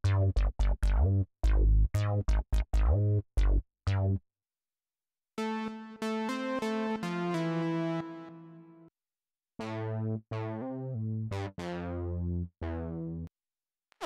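Martinic AX73 software synthesizer, an emulation of the 1986 Akai AX73 analog polysynth, playing preset demos. First comes a funky mono bass line of about a dozen short, punchy staccato notes. After a pause of about a second, two phrases of longer melodic synth notes follow, each note dying away.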